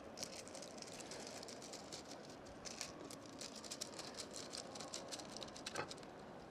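Thin wooden kumiko strips clicking and rattling lightly against each other and the wooden jig board as they are gathered and shifted by hand: many small, quick clicks.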